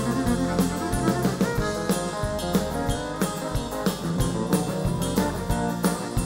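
Live country band playing an instrumental break: fiddle and electric guitar over a steady drum beat and bass.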